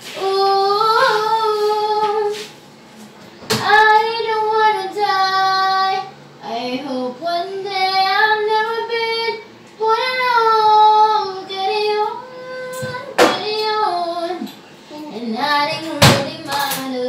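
A young child singing long held, high notes, phrase after phrase with short pauses. A few sharp knocks cut in, the loudest about a second before the end.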